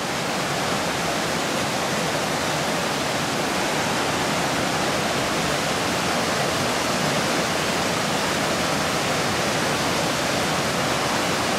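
Steady rush of a small waterfall pouring into a pool.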